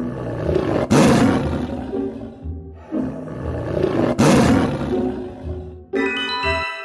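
Two big-cat roars, tiger-like, about three seconds apart, each fading over a second or so, over music with a low pulsing beat. Near the end the music moves on to a melody of held notes.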